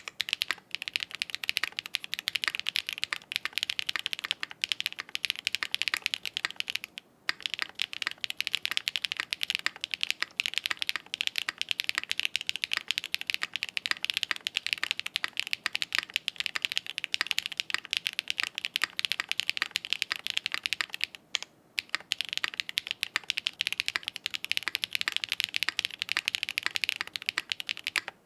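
Continuous fast typing on a Smith+Rune Iron160 mechanical keyboard with a half FR4 plate, Krytox 203g0-lubed SWK F3 switches and doubleshot ABS PBTFans Vior keycaps, and no foam dampening: a dense run of bright keystroke clicks. Typing pauses briefly about seven seconds in and again past twenty-one seconds.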